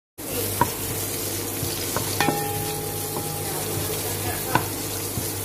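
Chopped onion frying in oil in a steel pot, with a steady sizzle. A few sharp metal clicks from a utensil against the pot, one of them ringing briefly about two seconds in.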